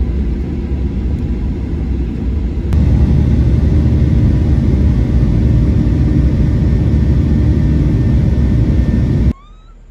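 Passenger jet cabin noise: the steady, loud, deep rumble of the engines and airflow. It gets louder about three seconds in and cuts off abruptly near the end.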